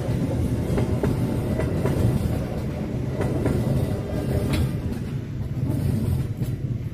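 Passenger train coaches rolling past at close range: a steady rumble with the wheels clacking over rail joints at a regular beat. The clacking stops and the rumble fades as the last coach goes by, about five seconds in.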